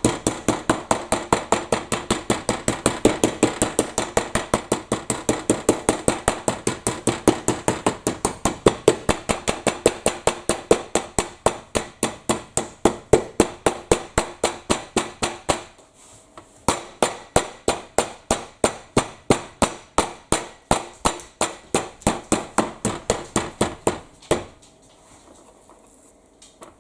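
Meat tenderizer mallet pounding pork loin steaks in rapid, even blows, about four a second, to tenderize them. The pounding breaks off briefly about 16 seconds in, resumes, and stops a few seconds before the end.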